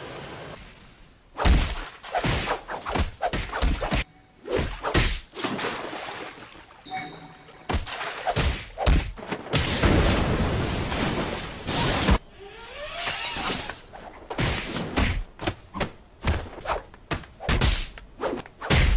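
Anime fight sound effects: a quick run of punch impacts and whooshes, then a long loud blast-like rush around the middle, and more rapid hits near the end.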